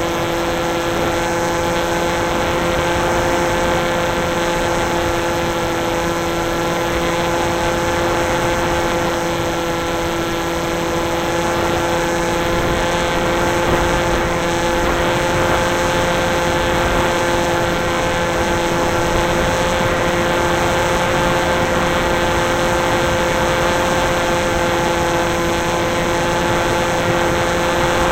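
FPV aircraft's motor and propeller running at a steady throttle, a constant hum with fixed tones, under a rush of wind noise on the onboard camera's microphone.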